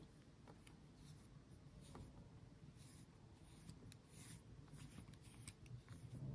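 Faint rubbing and small scattered clicks of fingers handling a Montblanc fountain pen.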